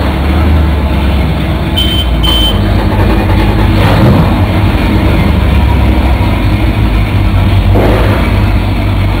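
The Regal 4060's Volvo Penta gasoline engines running steadily with a deep, even hum, with two short high electronic beeps about two seconds in.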